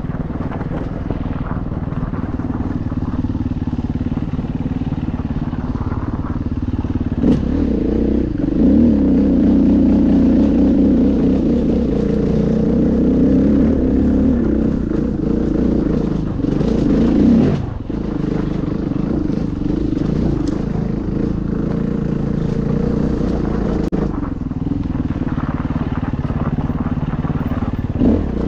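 KTM EXC enduro motorcycle engine running under load while riding, heard from the bike. It grows louder about seven seconds in, drops sharply for a moment a little past halfway, then pulls on steadily.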